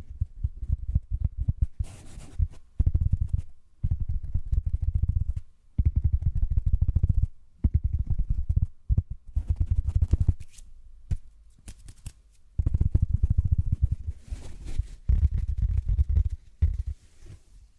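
Large coarse sponge rubbed against a condenser microphone's metal grille, giving a deep, crackly rumble in repeated strokes of one to two seconds with short pauses between them, and a longer pause about two-thirds of the way through.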